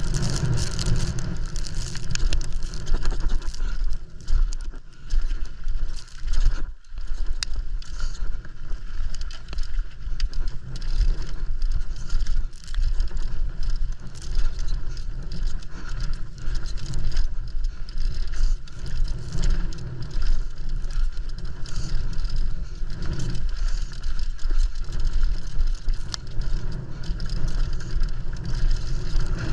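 Mountain bike descending fast over a rough trail: tyres crunching over dirt and stones and the chain and frame rattling continuously, under a low rumble of wind on the helmet or bike camera's microphone. The noise cuts out for a moment about seven seconds in.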